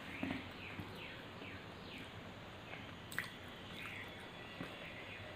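Close-up eating sounds: soft, wet chewing and mouth noises of rice, dal and fried fish being eaten, with a sharp click about three seconds in.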